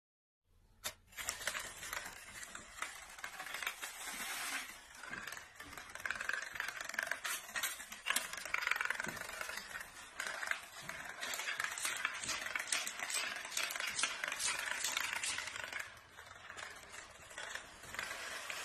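A long chain of dominoes toppling one after another, making a continuous rapid clicking clatter that swells and fades, with a brief lull near the end.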